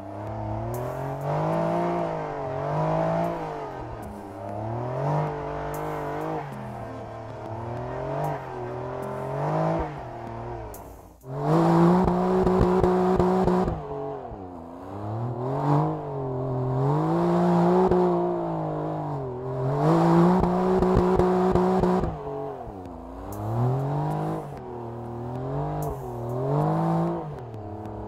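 Porsche 911 Dakar's flat-six engine revving hard as the car drives through sand. Its pitch rises and drops again and again, every second or two. About halfway through it cuts out briefly, then comes back holding high revs for a couple of seconds.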